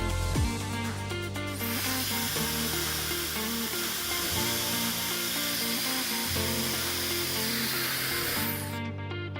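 Dyson Supersonic hair dryer switched on and blowing, a steady rushing hiss of air that starts about a second and a half in and cuts off near the end, over background music. The dryer powers up after its stuck power button was repaired.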